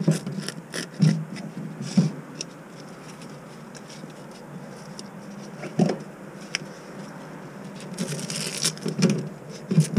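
A spoon scraping scales off a whole redear sunfish held over a plastic colander. The strokes are short and irregular, with louder ones about a second and two seconds in, near six seconds, and a cluster toward the end.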